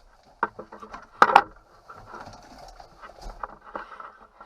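Clunks and knocks as a person climbs into a backhoe's cab, with a loud double knock just over a second in and scattered lighter clicks.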